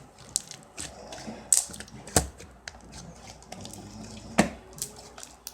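Slime being pulled apart and squeezed by hand, making irregular wet clicks and pops, the loudest about two seconds in and again near four and a half seconds.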